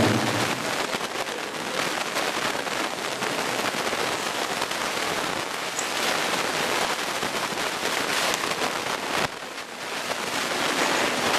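Audience applauding, a dense, steady clapping that dips briefly about nine seconds in and then picks up again.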